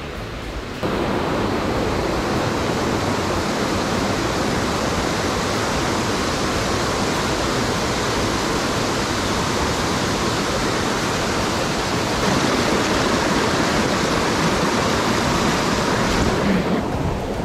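Loud steady rush of falling water from a mountain-stream waterfall, starting abruptly about a second in, slightly louder in the last few seconds, and cutting off just before the end.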